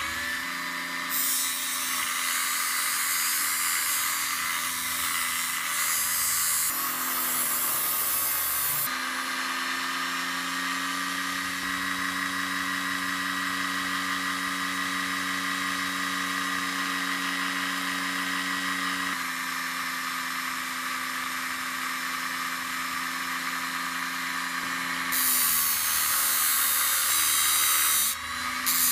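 Small electric motor of a homemade disc sander running steadily with a hum, while steel is ground against the spinning sanding disc: a harsh grinding hiss for the first several seconds and again near the end, lighter in between.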